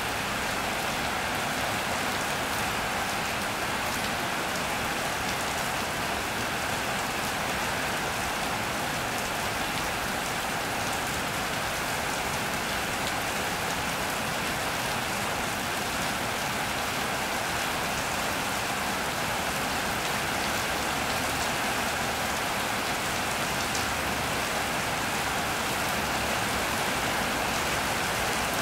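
Steady rain falling on an iron roof and wet paving, a constant hiss with scattered drop ticks.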